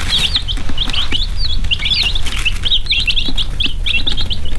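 A brood of baby chicks peeping continuously, many short high chirps overlapping one another.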